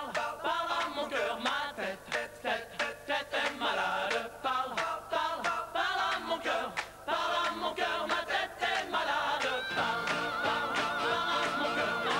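Upbeat pop song between sung verses, with wordless choir-like vocals over a steady beat. About ten seconds in, a long held high note with vibrato comes in.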